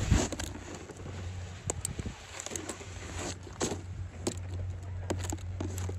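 A sharp thump right at the start, then scattered crunches and knocks of boots and a snowboard moving in snow close to the microphone, over a steady low hum.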